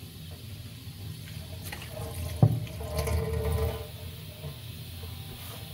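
A sharp knock about two and a half seconds in, as a plastic cutting board is handled, then a second or so of water running from a kitchen tap.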